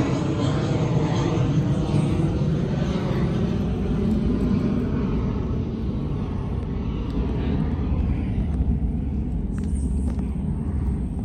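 Large airplane passing overhead: a deep, steady engine rumble whose higher tones fade away over the last few seconds.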